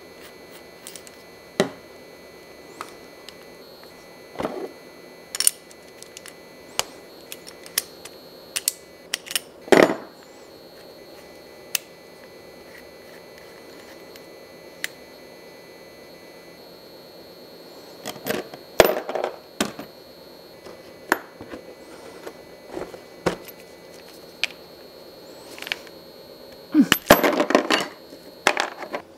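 Small metal clicks, clinks and taps of a hand rivet-nut tool's threaded die and mandrel being unscrewed and swapped, with parts set down in its plastic case. The taps come singly and scattered, with a busier rattle of handling about two-thirds of the way in and again near the end.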